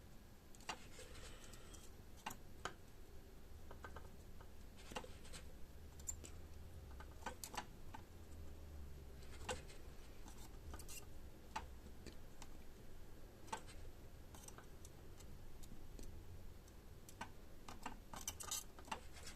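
Faint, irregular small clicks and taps of hand soldering at a bench: the iron and solder wire touching header pins on a circuit board, and the board being handled. A low steady hum sits underneath.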